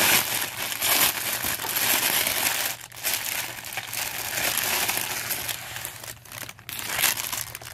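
Clear plastic jewelry bag crinkling as it is handled and opened to pull out a necklace: a dense run of crackles with a couple of brief pauses.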